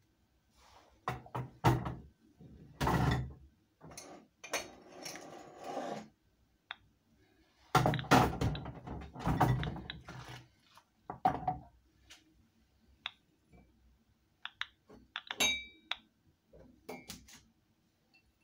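Washing up by hand: crockery and cutlery knocking and clinking together, in an irregular string of thunks and clinks with a few longer scraping stretches; the busiest handling is about three seconds in and around eight to ten seconds in.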